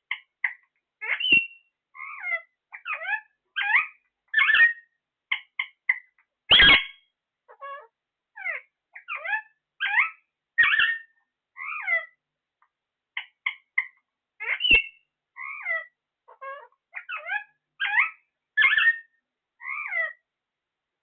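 A parrot calling in a long run of short, mostly falling calls, about one or two a second, with silent gaps between them; the loudest comes about six and a half seconds in.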